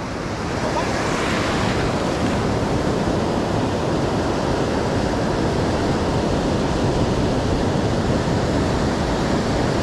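Ocean surf breaking and washing up a sandy beach: a steady rush of waves and foam.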